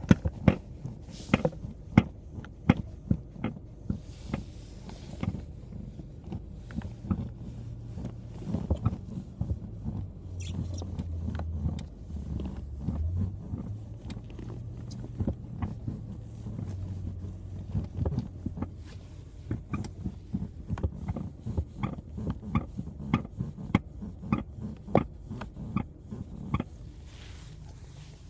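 Sharp clicks and creaks from a Volkswagen Jetta Mk4 seat, coming irregularly and then in quicker succession, over a low steady rumble. The clicks stop shortly before the end.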